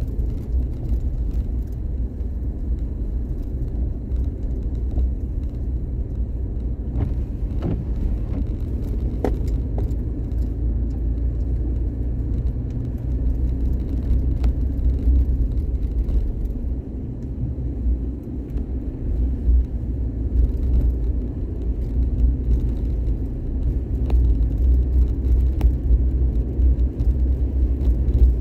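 Car driving: a steady low rumble of engine and road noise, with a few faint clicks.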